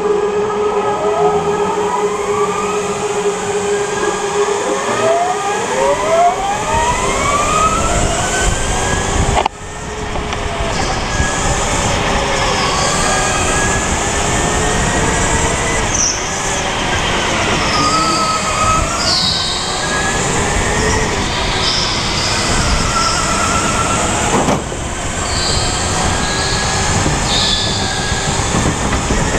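Whine of a Sodi RSX electric kart's motor, its pitch rising and falling as the kart accelerates and slows. Short high tyre squeals come through the corners.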